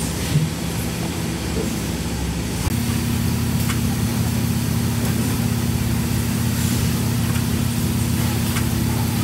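Steady machine hum of a pulp tableware production line's conveyors and drives, with a few faint clicks. The hum's pitch shifts about three seconds in.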